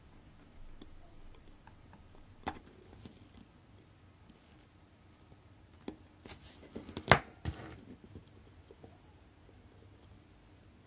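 Steel tweezers clicking and tapping against a mechanical watch movement's small metal parts: a few light, scattered clicks, the sharpest about seven seconds in.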